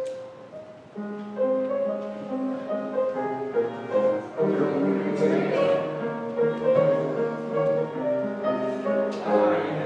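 Instrumental music played on a keyboard instrument, with steady held notes and chords, starting about a second in.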